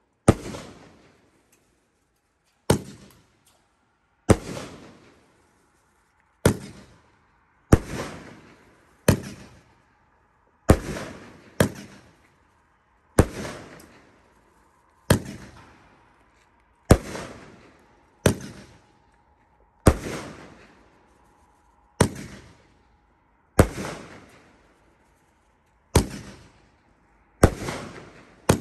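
Consumer aerial fireworks bursting in the sky one after another, a sharp bang every second or two, each trailing off in an echo.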